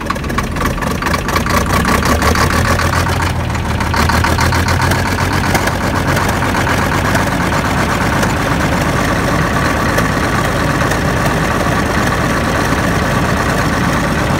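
Caterpillar D6 dozer's Cat 3306 six-cylinder diesel running just after a glow-plug cold start, settling into a steady idle about four seconds in.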